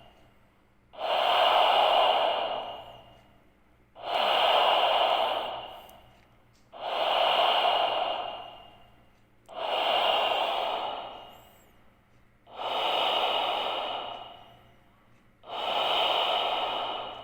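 A sleeping woman snoring: six loud, noisy breaths about three seconds apart, each starting sharply and fading away.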